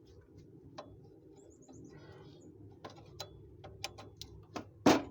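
Scattered metallic clicks and taps of hand tools working on car suspension parts, coming more often in the second half, with one louder knock near the end.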